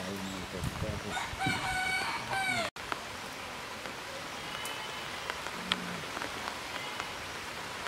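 A rooster crows once, a long call that falls away at its end. After an abrupt cut comes a steady hiss with a few faint ticks.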